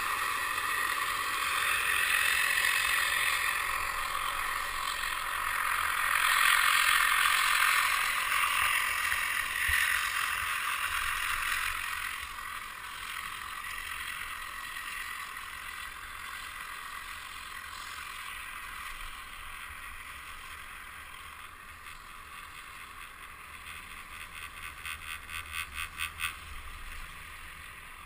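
Wind rushing over the microphone on a moving chairlift, loudest in the first half and then easing off. Near the end a quick run of about a dozen rhythmic mechanical clicks from the lift swells and stops.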